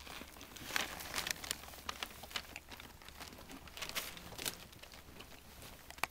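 Bedding crinkling and rustling, with irregular short wet clicks, as a mother collie licks and nuzzles her newborn puppy.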